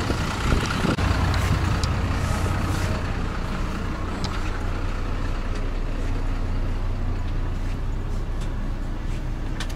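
Bus engine idling with a steady low rumble, with a few faint clicks over it.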